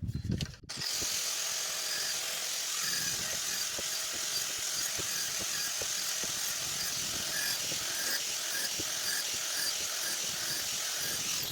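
Angle grinder running steadily under load, putting a slight chamfer on the inside and outside edge of a cut hole in metal. It starts about a second in and runs evenly until just at the end.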